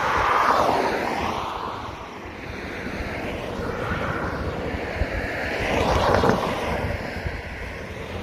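Cars driving past on a road bridge, their tyre and engine noise swelling and fading as they pass, loudest just after the start and again about six seconds in. Wind rumbles on the microphone throughout.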